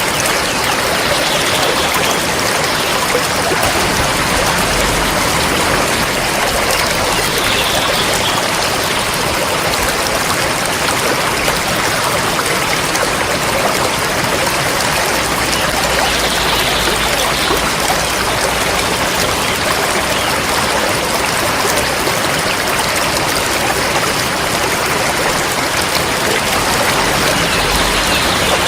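River water flowing steadily, a continuous rushing sound.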